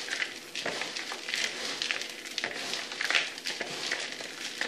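Hands stirring dry muesli of rolled oats, rye and barley flakes, almonds and dried fruit in a plastic bowl: an irregular dry rustling and crackling of the flakes as they are turned over.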